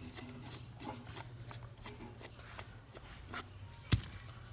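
Handling noises: scattered light clicks and rubbing over a low hum, with one sharp knock about four seconds in.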